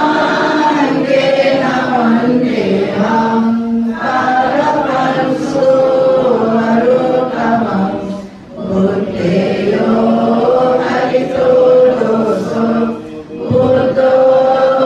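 A seated congregation chanting a Buddhist devotional chant in unison, in sustained phrases of about four seconds, broken by short pauses for breath.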